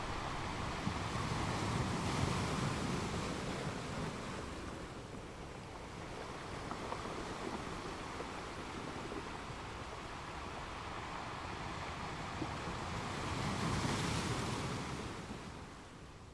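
Coastal wind and surf: a steady rushing noise that swells a couple of seconds in and again near the end.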